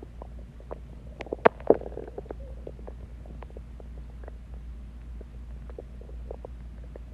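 A person's stomach gurgling and growling: a cluster of sharp pops and a gurgle about one and a half seconds in, then scattered small pops and bubbling.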